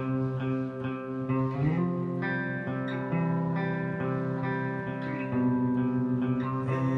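Instrumental guitar music: plucked guitar notes ringing over held chords, with no singing.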